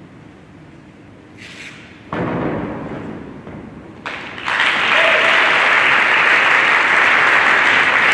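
A gymnast's vault landing on the mat: a sudden thud about two seconds in that fades, followed about two seconds later by audience applause that swells and holds steady.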